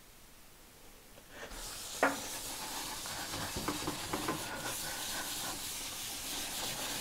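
A white non-abrasive sponge pad rubbing oil tint into an oak tabletop in circles, a steady scrubbing hiss that starts about a second and a half in. There is a single sharp knock about two seconds in.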